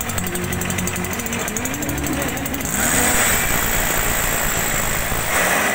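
Stihl backpack mist blower's two-stroke engine running steadily while it sprays water mist. About three seconds in, a louder hissing rush of air and spray from the nozzle comes in over the engine.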